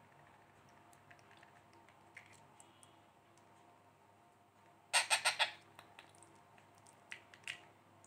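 A week-old Indian ringneck parrot chick calling for food while being hand-fed: a quick run of about five loud calls about five seconds in, then two shorter calls near the end, over faint small clicks.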